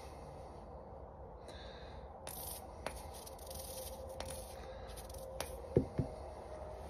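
Quiet handling as glue is squeezed from a plastic bottle onto a nylon dog-collar strap: faint scrapes and a few light clicks, with two soft knocks close together near the end.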